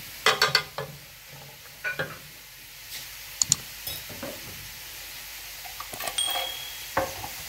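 Wooden spatula scraping and knocking against a metal pan while stirring shredded chicken and vegetables frying in butter, over a faint sizzle.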